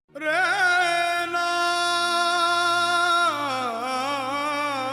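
A single voice singing one long note in an Indian classical style, held steady with slight vibrato and then wavering and sliding lower, over a faint low drone.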